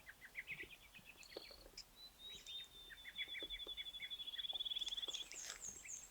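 Woodland songbirds singing: scattered quick high chirps, with one bird giving a long, even trill that lasts about three seconds, from about two seconds in. A few very high, thin notes come near the end.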